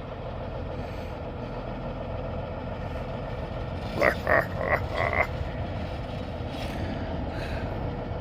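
A classic tow truck's diesel engine idling with a steady low rumble. About four seconds in, a few short, higher-pitched sounds cut in briefly over it.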